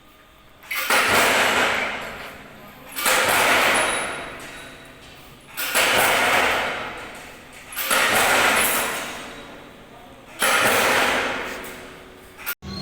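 Steel sliding garage door rolling along its rail, run five times. Each run starts sharply and rumbles away over a second or two.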